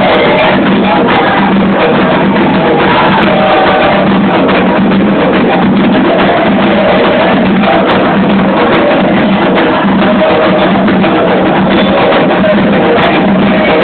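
Candomblé ceremonial music, with hand drums (atabaques) playing a continuous driving rhythm, recorded loud and distorted.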